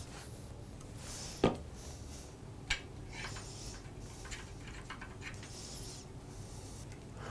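Hand work on antique mortiser parts: light scraping and rubbing, with two sharp knocks, a loud one about a second and a half in and a smaller one just under three seconds in, over a steady low hum.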